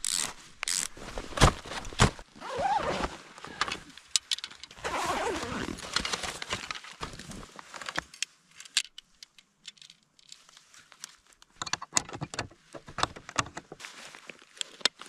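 Snowshoe bindings being fastened by hand: sharp clicks and clinks of buckles and straps mixed with rustling. The handling goes quieter for a few seconds past the middle, then the clicking resumes.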